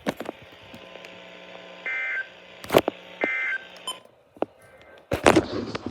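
Two short bursts of warbling digital data tones from a weather alert radio: the SAME end-of-message code that closes a NOAA Weather Radio emergency alert. A sharp knock falls between them, and a louder clatter of knocks comes near the end.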